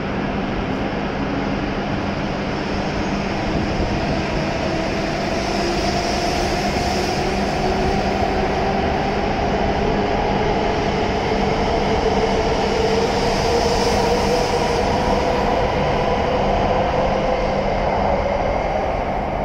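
W7 series Shinkansen pulling out along the platform, its traction motors whining steadily higher in pitch as it gathers speed, over the rush of the cars moving past.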